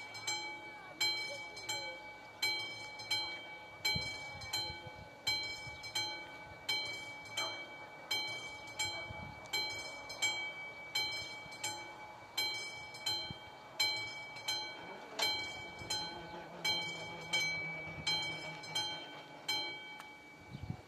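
Railway level-crossing warning bell ringing at an even pace, about one strike every 0.7 s, warning of an approaching train. It stops near the end.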